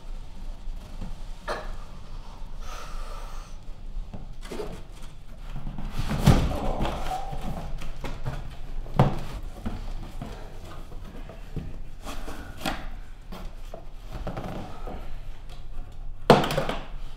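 Cardboard box being handled: flaps scraping and rustling, with three dull thunks, about six seconds in, about nine seconds in and, sharpest, near the end.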